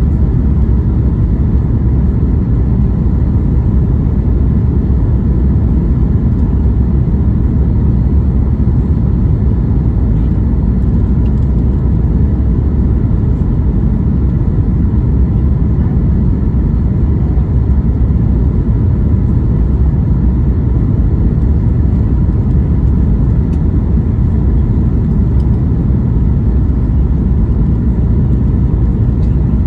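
Steady low rumble and roar inside the cabin of a Boeing 737 MAX 8, from its engines and the airflow over the airframe, with no sudden changes.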